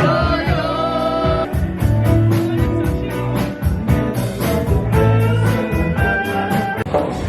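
Background music: a song with a singing voice over guitar and a steady drum beat.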